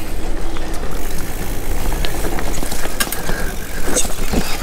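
Mountain bike rolling fast over a dirt and root singletrack: a steady rushing noise of tyres and moving air, with the bike's frame and drivetrain giving sharp rattles and knocks over bumps.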